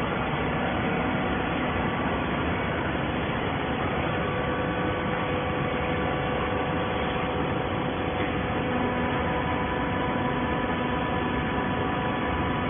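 Hydraulic baling press for scrap cardboard running: a steady machine hum of its motor and pump, with several steady tones over an even drone.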